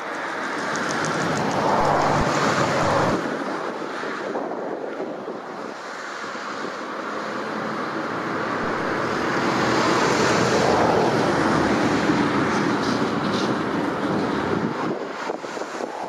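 An even rushing noise with no distinct tones, swelling up twice and easing off near the end.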